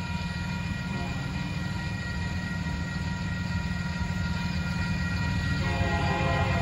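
Union Pacific freight train's diesel locomotives, an EMD SD70M among them, rumbling as the train approaches the grade crossing, with the crossing bell ringing steadily. The train horn comes in near the end.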